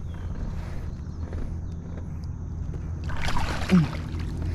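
Water splashing as a big largemouth bass is brought to the kayak and landed, loudest about three seconds in and ending with a short falling grunt. Underneath runs a steady low hum of water and wind against the kayak.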